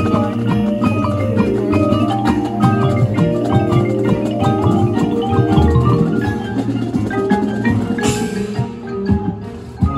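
Marching band front ensemble playing: marimbas and other mallet percussion in quick runs of short notes over low sustained tones, with a brief noisy swell about eight seconds in.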